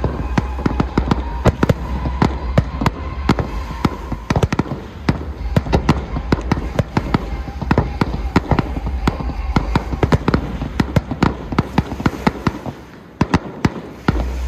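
Aerial fireworks: a dense, rapid run of sharp bangs and crackles from shells bursting, thinning out briefly near the end.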